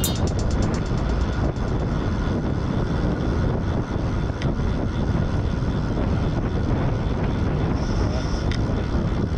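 Steady wind rumble on the microphone of a camera riding along on a moving bicycle, with a few faint ticks.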